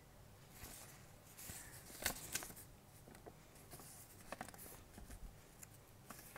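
Faint scattered clicks and rustles of small handling noises against a quiet room. The loudest cluster comes about two seconds in and a few more follow about four seconds in.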